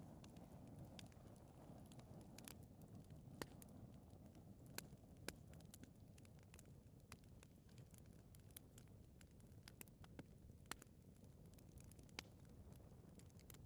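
Fire in a fireplace crackling faintly: irregular sharp pops, roughly one a second, over a low steady rumble of flame.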